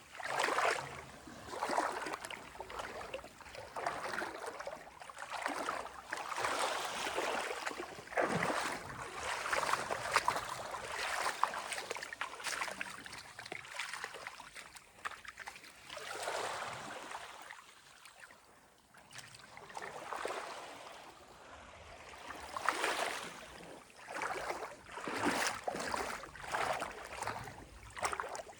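Sea water lapping and splashing in irregular washes that come and go every second or two, with a calmer lull about two-thirds of the way through.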